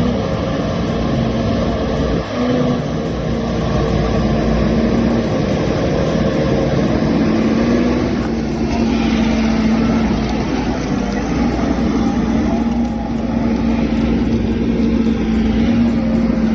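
Skidder's engine running steadily over a dense rumble, its pitch shifting slightly up and down as the machine works, with a brief drop about two seconds in.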